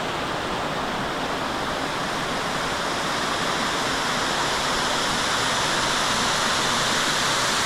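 A 20-foot waterfall pouring steadily into a creek, a constant rushing of falling water that grows a little louder in the second half.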